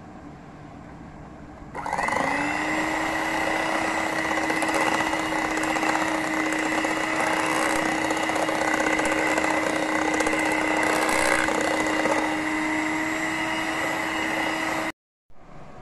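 Electric hand mixer switched on about two seconds in, its motor rising briefly in pitch and then running steadily as the beaters whip cream with powdered sugar and vanilla. It cuts off suddenly near the end.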